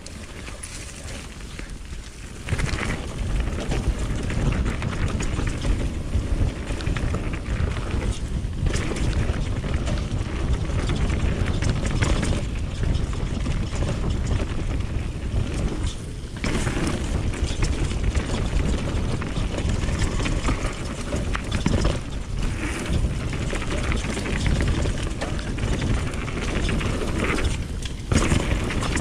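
Mountain bike riding down a dirt flow trail: tyres rumbling and the bike rattling over the ground, with wind on the camera microphone. The rumble grows louder about two and a half seconds in, easing briefly a few times.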